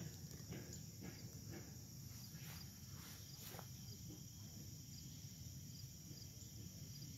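Insects trilling steadily in the grass, high and continuous, over a low background rumble.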